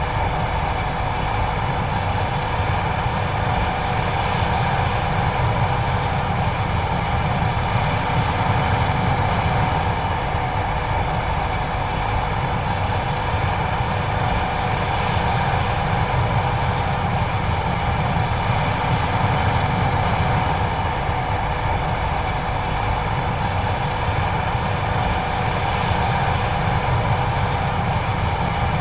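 John Deere 9570STS combine harvester running steadily while harvesting corn: a continuous low rumble with a steady mechanical whine over it.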